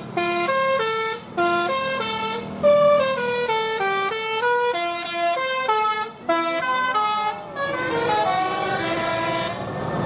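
Tour bus telolet basuri horn playing a quick melody of short, stepped notes, about three or four a second. The tune stops shortly before the end.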